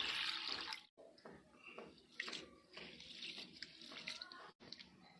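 Biryani rice being washed by hand in a vessel of water: water sloshing and grains rubbed together. It is louder for about the first second, then softer, scattered splashes.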